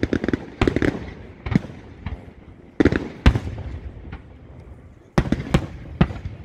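Aerial firework shells bursting overhead: a string of sharp bangs, each followed by a rolling echo, coming in clusters with short gaps between. The sharpest bang falls about three seconds in.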